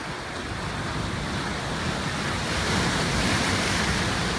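Ocean surf breaking and washing over a rocky shore, a steady rush with some wind, building a little in the second half.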